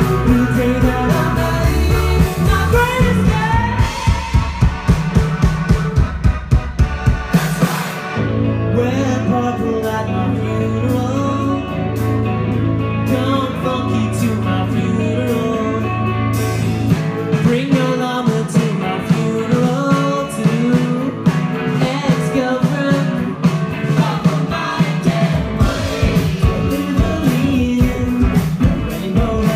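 Live indie rock band playing a song with a sung lead vocal over guitar, keyboards and a steady beat. It is loud and carried through the venue's PA. A deep held bass line comes in about a quarter of the way through and drops out past the middle.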